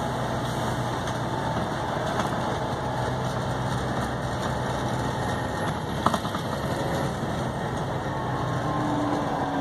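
Volvo B7TL bus's 7.3-litre diesel engine running steadily with an even hum, with one sharp knock about six seconds in.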